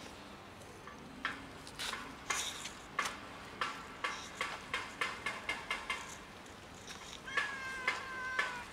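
A series of irregular sharp clicks and taps, then a calico cat meowing twice in drawn-out, even-pitched calls near the end.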